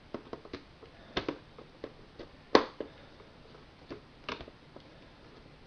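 Scattered clicks and taps of a Commodore 1530 Datasette's parts being handled during reassembly, with one sharper knock about two and a half seconds in.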